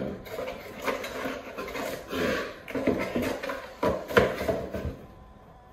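Cardboard packaging being handled and closed: rustling, scraping and light taps of cardboard flaps. A couple of louder knocks come about four seconds in, then the sound falls quiet near the end.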